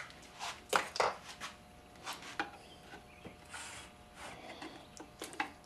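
A flat screwdriver prying at the seam between the two halves of a Polaris Trail Boss transmission case. It makes scattered clicks and short scrapes of steel on the metal case as the halves are worked apart, with one longer scrape about three and a half seconds in.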